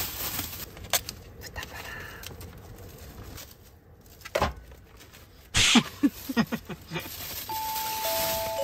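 Plastic film and a foam meat tray crinkling and rustling as a pack of sliced pork is unwrapped and tipped into a pan, with scattered sharp clicks and one louder clatter about two-thirds of the way through. Near the end a chime sound effect begins, its notes entering one after another, each lower than the last.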